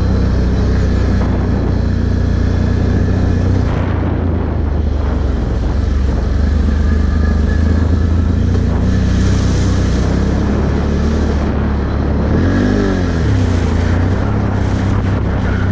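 Can-Am Outlander 1000 ATV's V-twin engine running steadily under way on a dirt trail, its note briefly rising and falling about three-quarters of the way through as the throttle changes.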